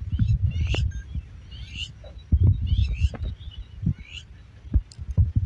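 Irregular low rumbling and thumps of wind buffeting the microphone, with short rising bird chirps repeating about once a second above it.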